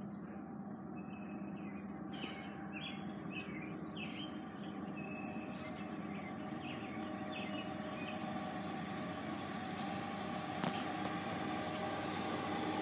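Diesel locomotives of an approaching Norfolk Southern freight train rumbling steadily, growing slowly louder, while small birds chirp over it in the first several seconds. A single sharp click comes near the end.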